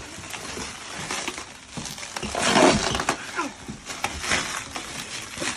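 A cardboard package being ripped open by hand, with a run of crackling and tearing noises that are loudest about two and a half seconds in.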